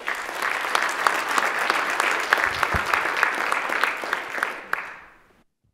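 A roomful of legislators applauding: dense clapping that starts all at once and fades out after about five seconds.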